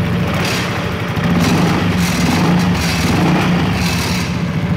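Yamaha NMAX scooter's single-cylinder four-stroke engine idling steadily, a little louder from about a second in. The engine runs smoothly with a new piston in a rebored cylinder, and the ticking ('etak-etak') heard before the repair is gone.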